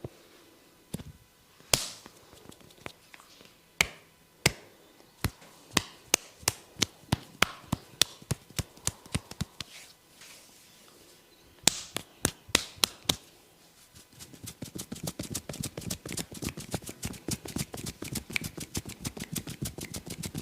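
A barber's hands slapping and tapping a man's head during a head massage: sharp single slaps and taps at about two a second, then, after a short pause, a fast run of chopping taps at about six a second.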